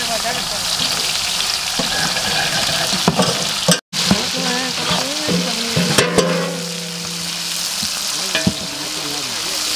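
Onions, mint and coriander sizzling in hot palm oil in a large cooking pot, with a steady frying hiss, being stirred. The sound cuts out for an instant just before four seconds in.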